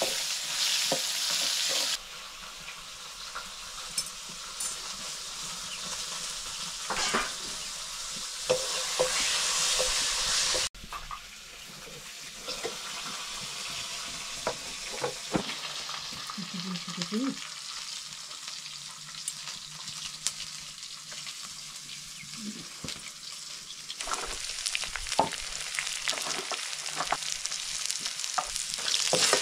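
Oil sizzling in a metal karahi wok as pieces of dried buffalo meat fry, with scattered clicks and scrapes of a ladle. The sizzle is louder near the end.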